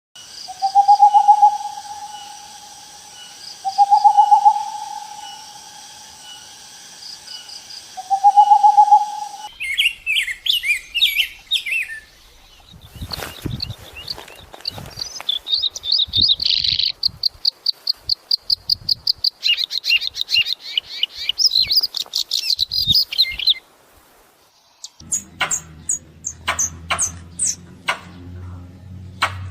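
A sequence of bird calls. Three long drawn-out calls come about four seconds apart, followed by bursts of fast, high chirping. A run of sharp clicks over a low hum comes near the end.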